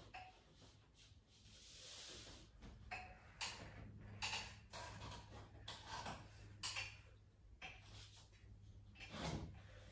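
Faint scraping and rubbing of a plasterboard sheet being pushed up and worked into place in a ceiling opening. Short scrapes come about once a second, with a firmer one near the end, over a low steady hum.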